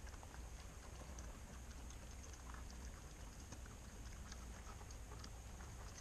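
Raccoon foraging and chewing in scattered birdseed: faint, irregular small clicks and crunches over a low steady rumble.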